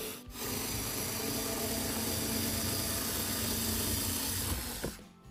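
Parkside PAS D5 4 V cordless screwdriver with its cutting attachment running steadily as it cuts through a cardboard box. The motor stops briefly just after the start and stops again near the end.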